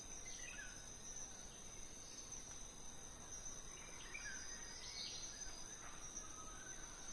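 Faint forest ambience: a steady high insect drone with short, falling bird chirps several times.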